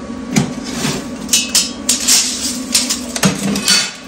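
Steel tubing and hand tools clattering on a perforated steel welding table: about ten sharp metallic knocks and rattles as pieces are picked up and set down, over a steady low hum.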